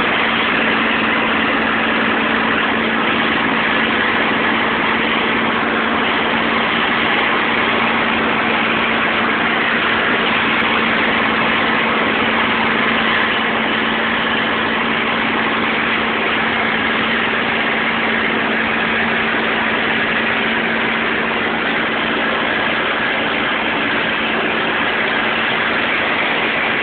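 P-51D Mustang's Packard Merlin V12 engine and slipstream heard from inside the cockpit: a loud, steady drone with a constant hum running under it, unchanging throughout.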